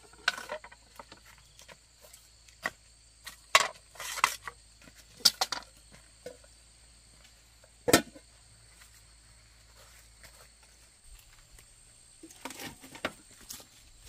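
Scattered knocks and scrapes of cookware being handled, with a sharp metallic clank of an aluminium pot lid being picked up about eight seconds in, the loudest sound. A faint steady high drone of insects runs underneath, and a few soft shuffling steps come near the end.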